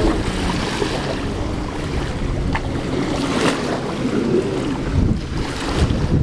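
Stand-up jet ski's two-stroke engine heard across the water, its pitch rising and falling as it spins and drifts, with wind noise on the microphone.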